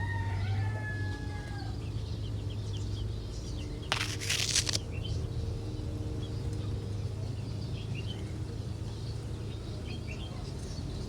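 Scattered faint bird chirps over a steady low hum, with one loud, short burst of noise a little under a second long about four seconds in.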